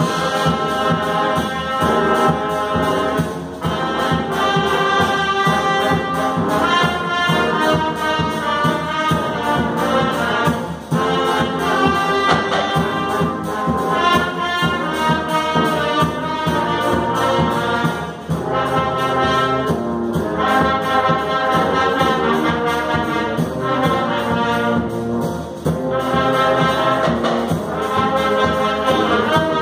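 A wind band playing a march-like piece with the brass section to the fore. The playing is loud and continuous, with a brief break between phrases about every seven seconds.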